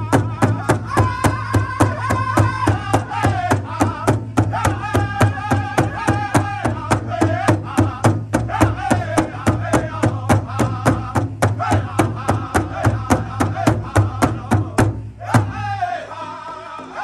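A powwow drum group singing in chorus while striking a large hide drum together in a steady beat, about three to four strokes a second. Near the end the drumming stops for a moment and the voices carry on alone.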